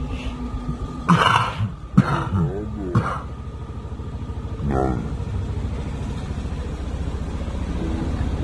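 A vehicle engine runs steadily at a low, even rumble. Over it come four short bursts of a person's voice: three harsh cough-like bursts about a second apart, then a brief pitched call near the middle.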